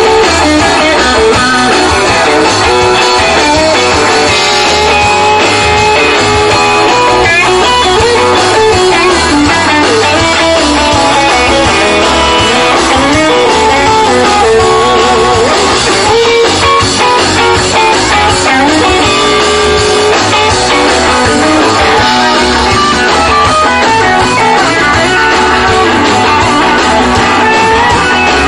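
Live rock and roll band playing an upbeat number on electric guitars, bass and drums, with a lead electric guitar playing melodic lines over the beat.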